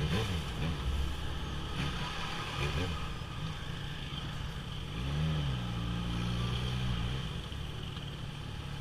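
Yamaha XJ6 motorcycle's inline-four engine running while riding, with the revs rising about five seconds in, holding for a couple of seconds, then easing off.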